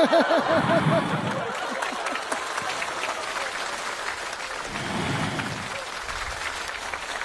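Studio audience laughing and applauding, with a fresh wave of laughter about five seconds in.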